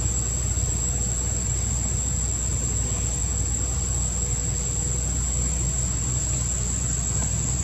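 Steady outdoor ambience: a continuous high-pitched insect drone over a low, even rumble.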